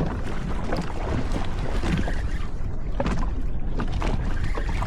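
Wind buffeting the microphone over water sloshing against a jet ski's hull, with scattered small splashes and knocks.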